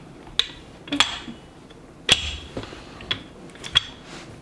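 A rolling pin knocking and clacking against a wooden board while pie dough is rolled out: several sharp knocks, roughly one a second.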